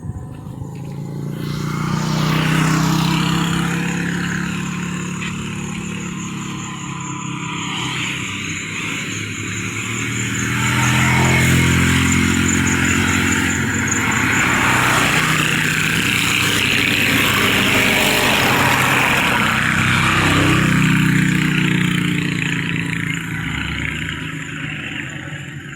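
Motor vehicles passing on a road: engine hum and tyre noise swell about two seconds in, then again for about ten seconds in the middle, before fading near the end.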